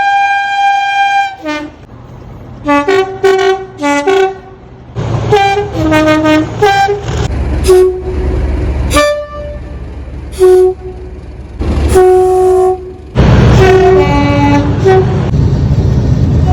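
Class 37 diesel locomotives' two-tone air horns sounding a string of blasts, switching between a high and a low note, mostly short toots with a few longer ones. From about five seconds in, a low rumble runs underneath.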